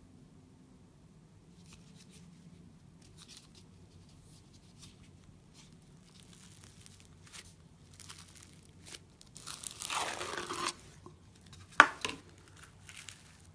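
Tiny silver beads crackling and crunching as fingers press and stir them, first as scattered faint crackles, then a louder stretch of crunching about ten seconds in, and a single sharp crack near the end.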